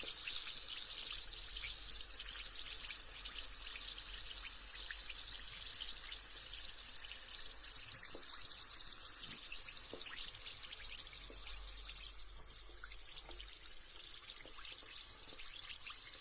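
Carbonated bath bomb fizzing in bathwater: a steady hiss of bursting bubbles, speckled with many tiny crackles and pops.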